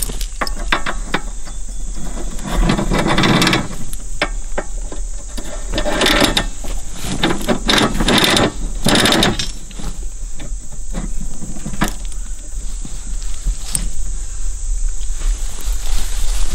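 Heavy steel chain clinking and rattling in irregular bursts as it is handled and hooked to the back of an ATV, over a steady high insect drone.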